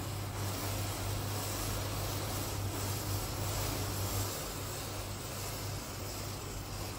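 Rows of matchsticks burning together with a steady hiss of flame over a low steady hum, with no separate pops or bangs.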